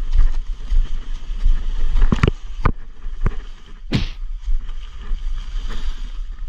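Footsteps crunching through dry leaf litter on a steep forest slope, heard through a handheld or body-worn camera's microphone with a steady low wind and handling rumble. Several sharp snaps or knocks sound through it, the loudest about four seconds in.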